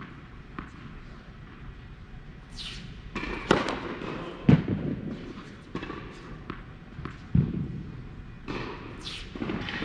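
Tennis serve in an echoing indoor court hall: a tennis ball bouncing on the hard court, then the sharp crack of the racket striking the ball about three and a half seconds in. Several dull thuds follow, with a swish near the end.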